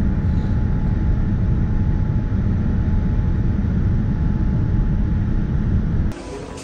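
Airliner cabin noise in flight: a steady, loud low rumble of engines and rushing air with a faint steady whine above it. It cuts off sharply near the end to much quieter room sound.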